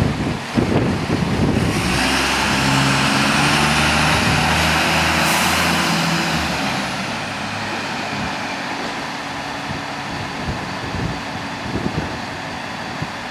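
Optare Versa single-decker bus engine running as the bus pulls past close by, with a steady hum and a thin high whine that rises and then falls. It is loudest for a few seconds, starting about two seconds in, then fades as the bus moves away.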